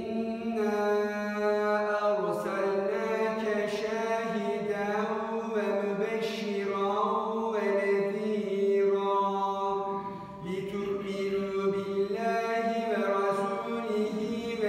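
A solo voice chanting Qur'an recitation in long, ornamented held notes, with a brief pause for breath about ten seconds in.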